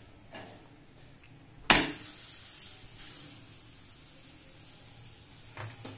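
Rice-flour akki roti laid onto a hot iron tava: a sharp slap about two seconds in, then steady sizzling that slowly fades.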